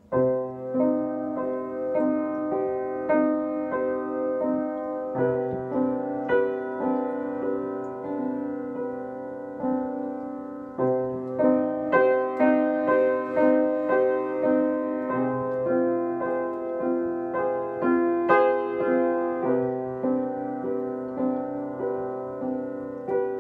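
Upright piano playing the chords C minor, F minor and G major over a bass note, struck again and again in a steady rhythm, with the harmony changing about every five seconds.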